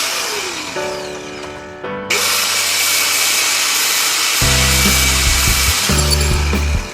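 Electronic background music with buzzing synth tones that shift in steps. A heavy bass line comes in about four and a half seconds in.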